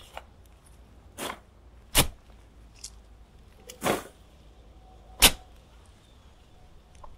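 Shovel digging into soil, about five separate strokes, one every second or two, over a low steady background hum.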